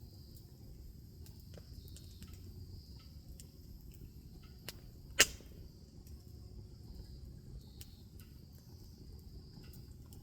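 Wood fire crackling: scattered sharp pops and snaps over a low steady rumble, with one much louder pop about five seconds in.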